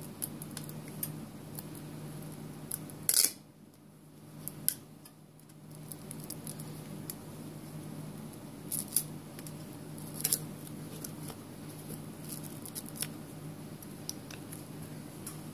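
A few sharp clicks and taps as the glued glass back cover of a Samsung Galaxy S6 Edge is pried up and lifted off its frame, over a steady low hum.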